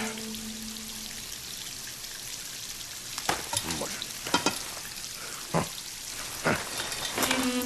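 Steady hiss of water spraying, with several short knocks and clunks from about three seconds in.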